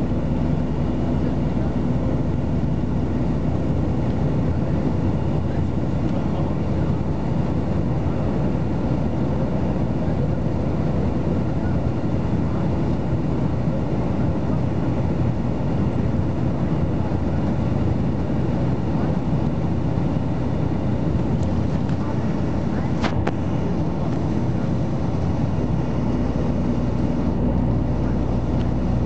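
Steady engine and road rumble heard inside a moving bus, with one brief click about three-quarters of the way through.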